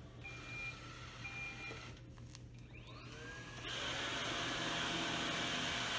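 Roomba robot vacuum running with a steady hum and giving two short high beeps. After a few clicks and rising tones, its motor and brushes get clearly louder about two-thirds of the way through and run steadily.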